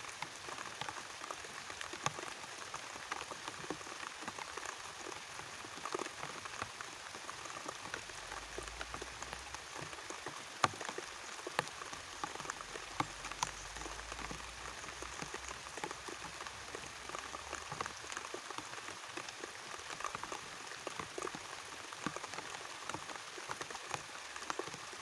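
Steady rain, not very heavy, a dense patter of many small drops.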